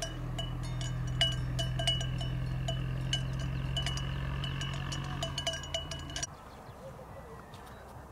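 A metal livestock bell clanking irregularly, as from a grazing animal, over a low steady hum. Both cut off abruptly about six seconds in, leaving faint outdoor ambience.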